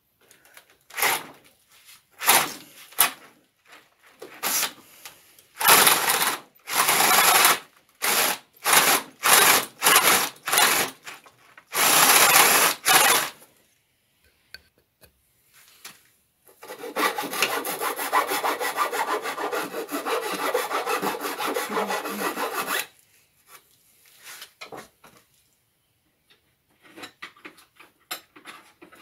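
Cordless drill boring through a wooden leg with a 25 mm bit, widening a hole. It cuts in a string of short bursts for the first dozen seconds, then in one steady run of about six seconds, followed by a few faint scrapes.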